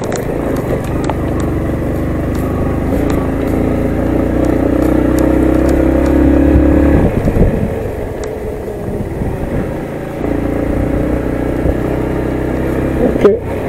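Yamaha MT-15 motorcycle riding under throttle on a climbing mountain road. The engine builds, drops off suddenly about halfway through, then picks up again later.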